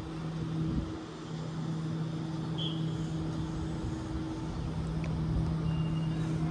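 Waratah double-deck electric passenger train running slowly into the platform and coming to a stop, with a steady low electric hum. A brief chirp comes about two and a half seconds in, and short high beeps start near the end.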